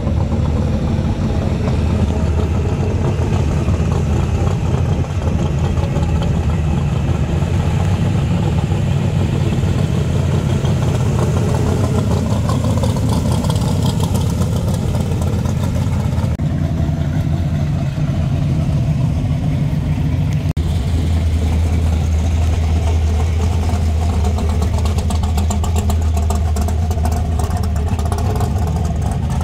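Classic Chevrolet muscle cars, a first-generation Camaro and a Chevy II Nova, driving slowly past one after another with loud, deep exhaust notes running steadily without hard revving. The low note grows stronger in the second half as the Nova comes through.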